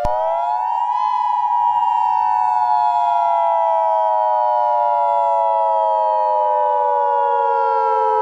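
Civil-defense-style siren wail that rises over the first second and then winds slowly down in pitch. A steady two-note alert tone is held beneath it and cuts off just after the end.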